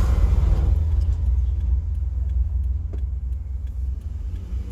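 Steady low rumble of a car heard from inside the cabin, with a faint click about three seconds in.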